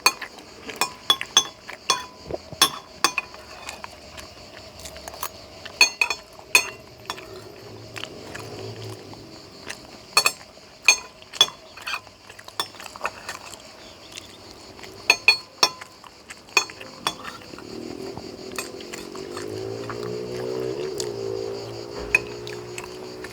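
Cutlery clinking and scraping against a plate in irregular sharp clicks as food is eaten. Near the end there are a few seconds of a low pitched, wavering hum.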